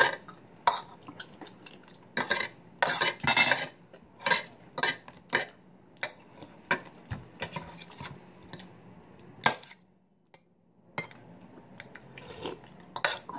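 Metal spoons and forks clinking and scraping against ceramic soup bowls and a plate as two people eat: irregular sharp clinks, with a short lull about ten seconds in.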